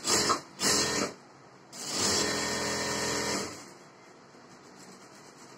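Electric sewing machine running in two brief bursts, then a steady run of nearly two seconds, stitching the lining to the blouse fabric along the neckline.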